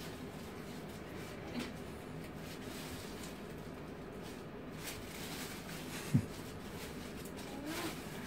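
Faint rustling and crinkling of a plastic bag and styrofoam packing as a prop is unwrapped from its box, with one short sharp sound about six seconds in.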